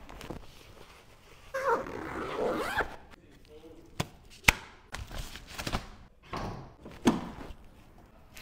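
Protective plastic transport wrap being peeled and pulled off a car's body, crinkling and rustling in uneven stretches, with two sharp snaps about four seconds in.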